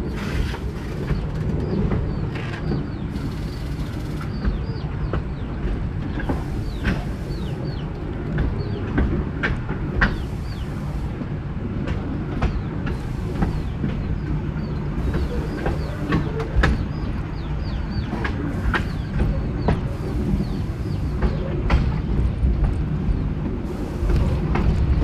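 Narrow gauge train running along the line: a steady low rumble of wheels on rail, with frequent irregular clicks and knocks from the wheels and track.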